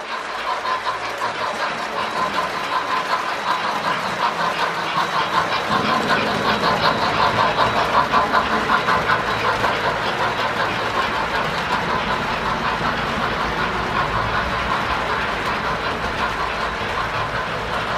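S gauge American Flyer model freight train of coal hopper cars rolling on the layout track, the wheels running in a steady rapid clatter over the rail joints. It is loudest about six to ten seconds in as the hoppers pass close by.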